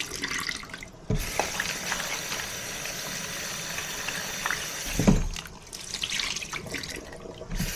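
Kitchen tap running into a sink, starting about a second in, with a thump about five seconds in; after that the water sound is weaker and broken.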